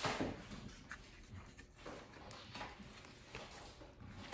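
Paper and cardstock being handled: a rustle as the layered cards of a paper waterfall flap are opened, loudest at the start, then soft brushes and light taps of fingers on the card.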